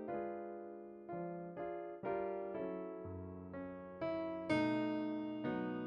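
Slow keyboard music in a piano sound, with single notes and chords struck one after another, each ringing and fading.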